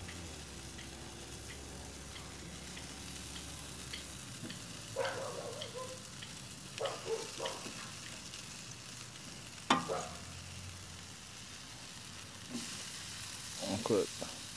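Steaks and ribs sizzling on a barbecue grill: a steady hiss, with a few short faint knocks and one sharp click nearly ten seconds in.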